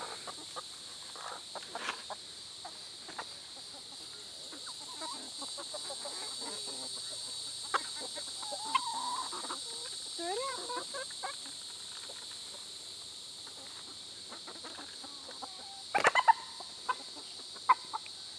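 Backyard hens clucking as they feed, in short scattered calls, with a few sharp clatters near the end.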